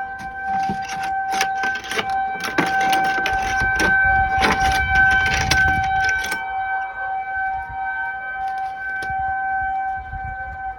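Tornado warning siren sounding a steady tone. For the first six seconds or so it is joined by a run of clattering and rattling.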